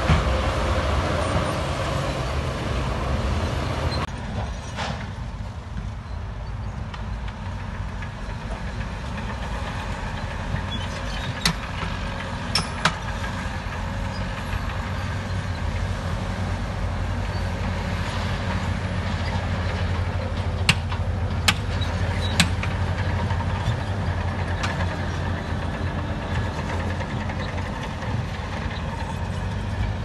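Heavy diesel machinery running steadily with a low hum: a Shantui bulldozer pushing dirt, then, after a change about four seconds in, dump trucks with their beds raised, tipping dirt out. A few short sharp knocks come in the middle stretch.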